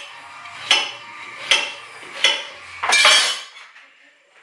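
Kitchen knife chopping raw pumpkin into cubes on a cutting board: three sharp knocks about three quarters of a second apart, then a louder, longer sound about three seconds in.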